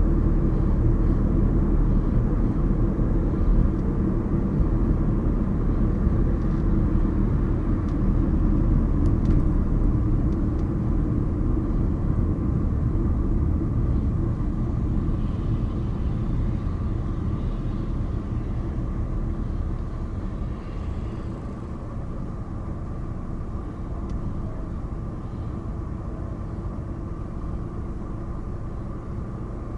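Car driving on city streets: steady engine and road rumble that grows quieter about two-thirds of the way through.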